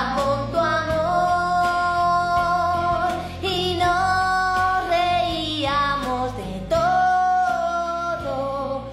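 A girl singing karaoke into a microphone over a backing track, holding several long notes.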